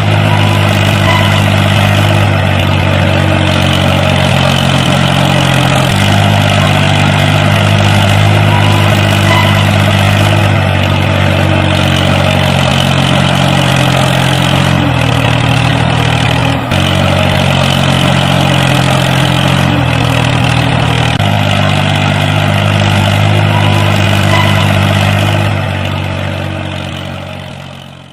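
Tractor engine running steadily, its pitch stepping down and back up a few times as if under changing load, fading out over the last few seconds.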